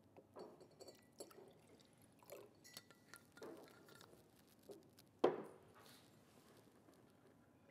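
Faint rustling and small clicks of something being handled close to the microphone, with one sharper, louder bump about five seconds in.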